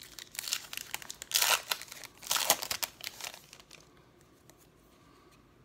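Foil wrapper of a trading-card pack being torn open and crinkled by hand for about three seconds, loudest in two surges in the middle.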